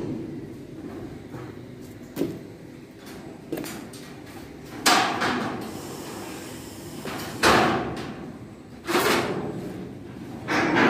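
Irregular heavy bangs from work on the steel hull of a barge under construction: four loud ones and two lighter, a second or two apart, each with a short ringing tail, over a steady low background din.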